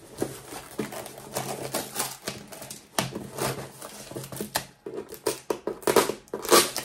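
A parcel being opened by hand: irregular crackling, clicking and rustling of packaging, loudest about three seconds in and again near the end.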